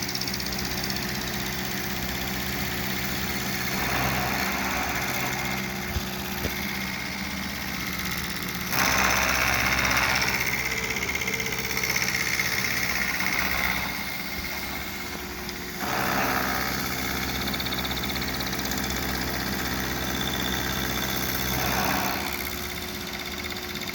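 Milling machine spindle running steadily while a face mill with four worn carbide inserts cuts across a high-density plastic block, the table fed by hand crank. The cutting noise swells and fades in three long stretches over the steady motor hum.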